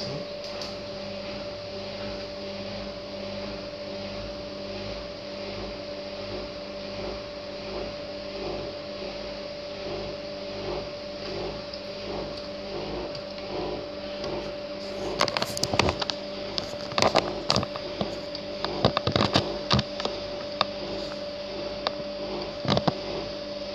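Hotpoint front-loading washing machine running with a steady hum near the end of its wash cycle. From about fifteen seconds in, a run of irregular clicks and knocks joins the hum.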